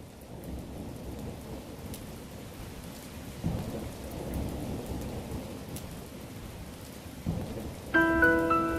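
Steady rain with low rolling thunder, swelling about three and a half seconds in and again near the end. Piano notes start in just before the end.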